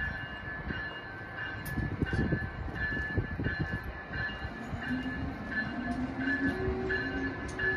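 Amtrak Northeast Regional train's stainless-steel passenger coaches rolling past at close range: a steady rumble of wheels on the rails with a run of short knocks, and a faint high tone that comes and goes in short pulses.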